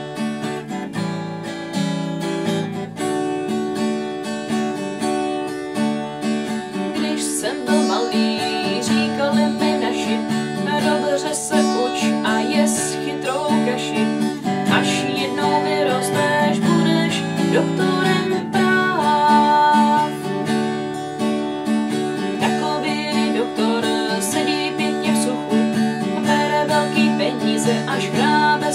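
Fender acoustic guitar strummed in a steady four-beat rhythm, playing open chords starting on D as the song's introduction.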